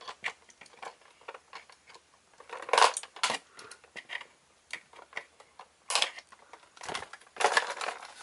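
Small plier-type snips clicking as they cut plastic tie-downs holding a plastic toy in its packaging tray, with the tray and plastic wrap rattling and crinkling as the toy is handled. The sound is irregular sharp clicks, with a few short, louder rustles.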